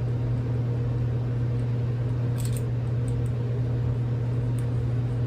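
A steady low mechanical hum, with a few faint small metal clicks about two and a half seconds in and again near the end as a screwdriver works a small grip screw on a revolver.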